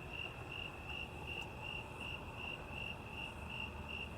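Cricket chirping steadily: one high note repeated evenly about three times a second, over faint background noise.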